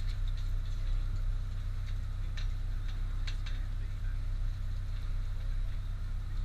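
Charter fishing boat's engine idling with a steady low hum, and a few sharp clicks in the middle, around two and a half to three and a half seconds in.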